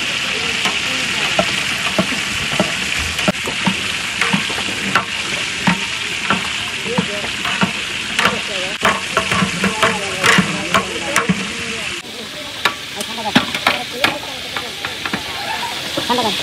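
Food sizzling as it fries, with a utensil stirring it and scraping and knocking against the pan at irregular moments.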